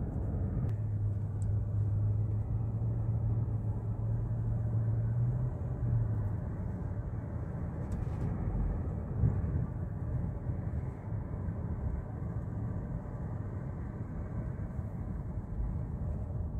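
Car cabin road and engine noise while driving, a steady low rumble. A low steady hum holds for the first six seconds or so, and a short sharp sound comes about eight seconds in.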